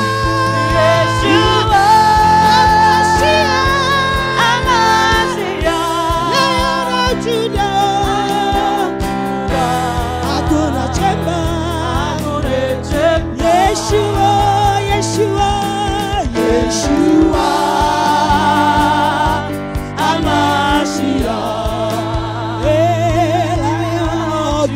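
Gospel worship song: voices singing a wavering, held melody over instrumental backing with sustained bass notes and a steady beat.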